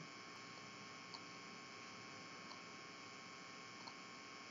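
Near silence: a faint steady electrical hum and hiss from the recording, with three faint ticks about a second and a half apart.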